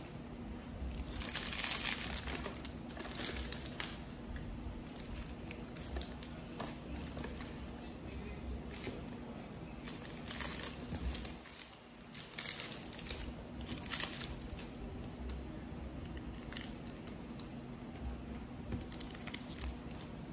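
Plastic wrapping on a sealed trading-card package crinkling in irregular bursts as it is torn open by hand.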